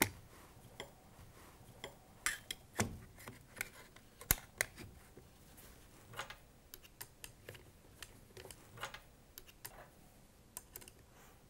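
Metal parts of a Dorma Junior Office glass-door lock being fitted onto a glass panel and screwed together: faint, irregular clicks and taps, with a few sharper knocks.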